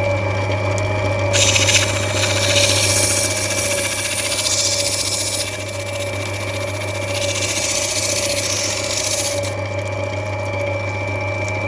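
Lapidary grinding wheel running with a steady motor hum; about a second in, a rough opal is pressed onto the wet wheel and grinds with a loud, harsh hiss for about eight seconds before being lifted off. This is rubbing back the top of the stone to take the high points off and level it.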